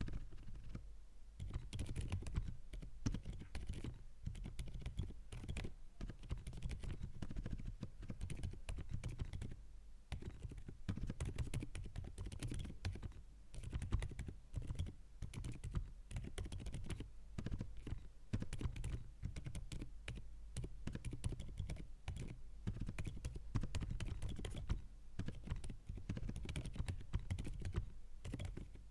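Continuous typing on a GAS67 65% mechanical keyboard with lubed Outemu Silent Creamy switches. It is a fast, steady run of soft, low key presses, with a few brief pauses.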